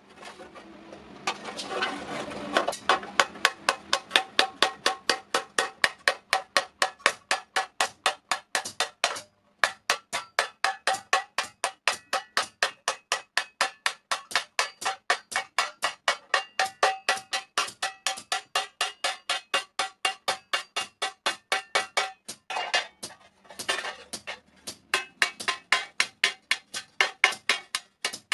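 Hand hammer striking an iron thali plate on an iron block: steady blows about three a second, each with a metallic ring, as the plate is beaten into shape. The hammering breaks off briefly about nine seconds in, then carries on.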